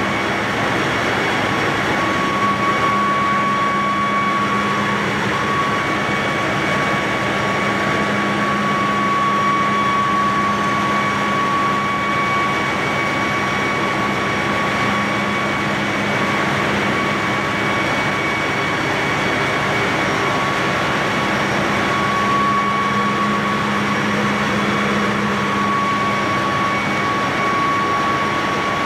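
Ship's engine-room machinery running: a loud, steady roar with a low hum and a high whine that comes and goes.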